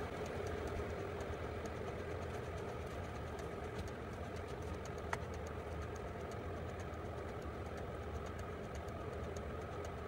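Vevor 5 kW diesel air heater running at its lowest power level: a steady hum with faint, regular ticking and one sharper tick about five seconds in.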